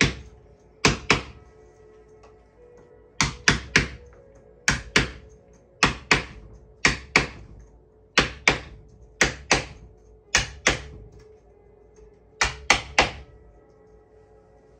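Hammer taps on a wooden caning tool, driving a pressed cane seat sheet down into the groove around the chair seat. The sharp taps come in quick pairs and triplets about once a second, with a short pause near the end.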